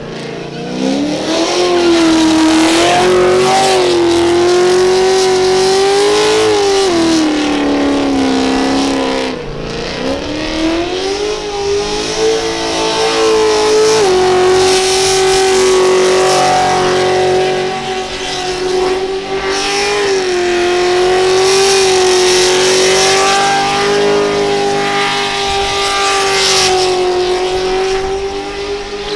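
Commodore ute's engine in a burnout, held at high revs for long stretches over the noise of spinning tyres. The revs dip and climb back a few times.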